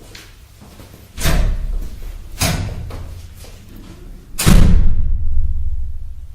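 A heavy door slams three times, about a second, two and a half seconds and four and a half seconds in, each with a long low rumble dying away after it. The last slam is the loudest.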